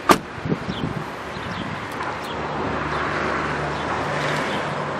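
A 2007 Mercedes-Benz S450 front door shuts with a single sharp thud just after the start, followed by a few lighter knocks. Birds chirp now and then, and a steady low hum comes in about halfway.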